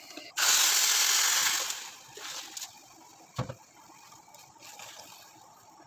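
Water poured into a pan of vermicelli browned in hot oil, hissing and sizzling loudly for about a second and a half, then dying away. A single knock follows a little later.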